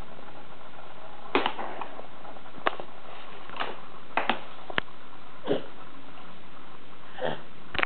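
Scattered short taps, clicks and smacks of young children eating from bowls with their hands, about nine in all, over a steady hiss.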